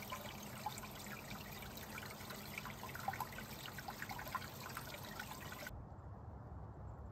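A small trickle of water running over and between mossy rocks, a light babble of little drips and splashes. It cuts off suddenly near the end.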